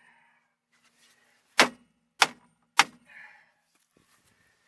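Three sharp hammer blows on the seized rear brake drum of a 2002 Chevy Malibu, evenly spaced a little over half a second apart, each with a short metallic ring.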